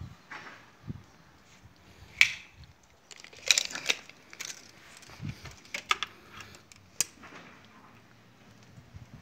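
Irregular light clicks and knocks. The loudest come about two seconds in and in a cluster around three and a half to four seconds in, with a few more scattered later.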